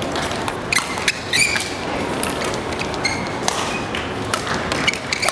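Badminton rally: sharp racket strikes on the shuttlecock and short high squeaks of court shoes on the floor, over a steady background of hall noise.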